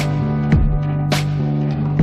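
Background music with a steady beat, guitar-like plucked notes over a held low tone.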